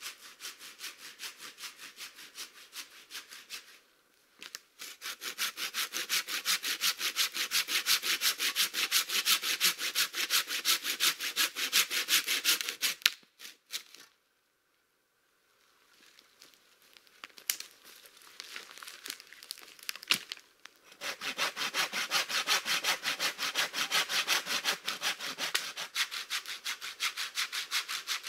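Hand saw cutting through a fallen dry log with steady back-and-forth rasping strokes. It comes in several bouts, with a brief pause a few seconds in and a longer silent break midway, and is quieter for a while before the strokes grow strong again.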